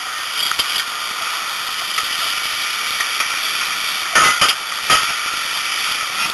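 A steady hiss, with three sharp knocks or cracks between about four and five seconds in.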